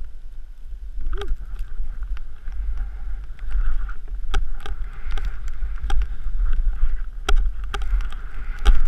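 Wind rumbling on a helmet-mounted action camera's microphone during a fast descent through deep powder, with a steady snow hiss from about a second in and frequent sharp clicks and knocks as the camera is jolted.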